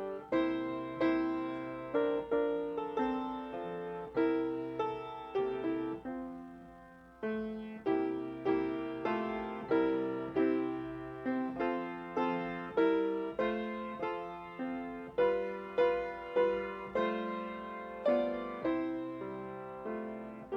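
Solo piano playing a slow piece, notes and chords struck one after another and left to fade.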